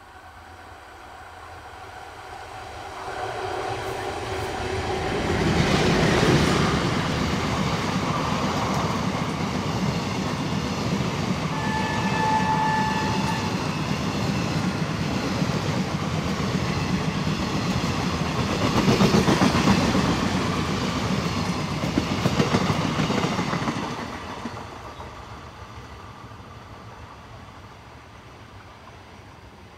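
Indian Railways WAP-4 electric locomotive and its passenger coaches passing at speed. The rumble builds as the train approaches, then the wheels clatter over the rail joints for about twenty seconds, with one short horn blast about twelve seconds in. The sound fades as the train draws away.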